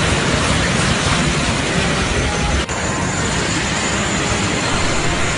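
Jet aircraft engines running: a steady, loud rushing noise, broken by a brief drop about two and a half seconds in.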